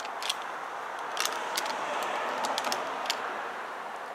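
Steady rushing background noise with a scattering of small sharp clicks, more of them in the first half.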